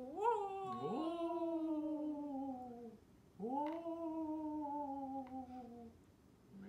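Two long, drawn-out vocal calls, each rising sharply and then sliding slowly down in pitch for two to three seconds.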